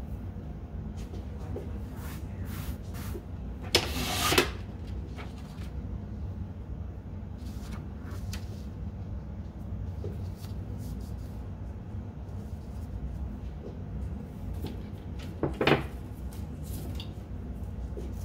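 Sheet of copy paper and a cotton T-shirt being handled on a table: faint rustles and taps, with two short, louder rustling knocks, about four seconds in and again near the end, over a steady low hum.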